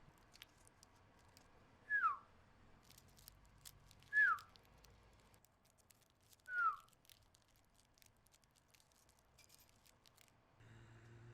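Three short whistle-like notes, each sliding quickly downward in pitch, spaced about two seconds apart, with faint scattered ticks between them.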